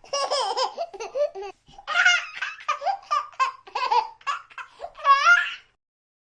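A baby laughing in a run of short, high-pitched bursts, with a longer laugh near the end.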